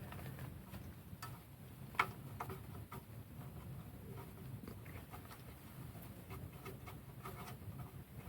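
Faint scattered clicks and light taps of handling, with one sharper click about two seconds in, over a low background hum.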